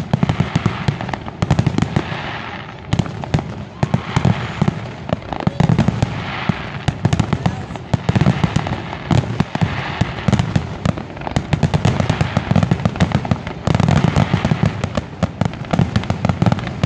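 Fireworks display: aerial shells bursting and crackling in a dense, rapid barrage, the bangs following one another many times a second with hardly a pause.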